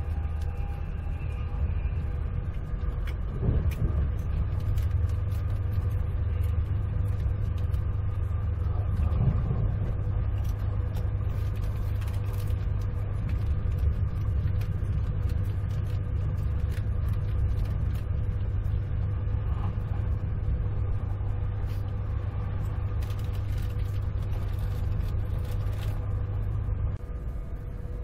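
Cabin noise of a Virgin Trains Class 390 Pendolino electric train running at speed: a steady low rumble of wheels on rail with a constant hum and scattered faint clicks. The rumble eases slightly near the end.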